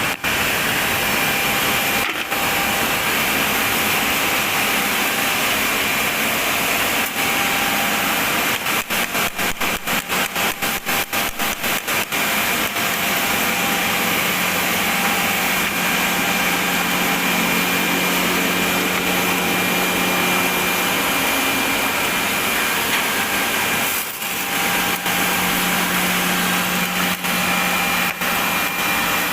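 Electric welding arc hissing and crackling steadily, with a faint steady whine over it. About a third of the way in, the noise pulses rapidly and evenly for a few seconds.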